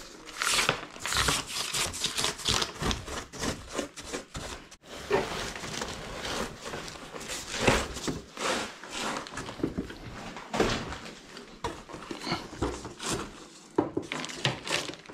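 Close-up handling noise of an air conditioner's foam-insulated refrigerant pipes and drain hose being pushed through a hole in the wall: irregular rustling and scraping with a few sharper knocks.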